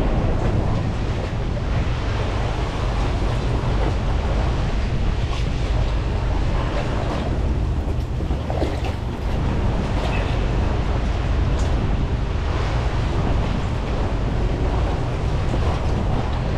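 Steady wind buffeting the microphone, a low rumble, over choppy water lapping around the boat and dock pilings.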